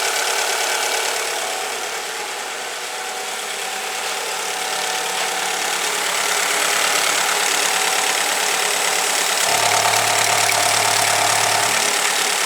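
Alfa Romeo GT 2.0 JTS four-cylinder petrol engine idling evenly while it warms up, with no stumbling, just after a repair for a knock. A steady low hum joins for about two seconds near the end.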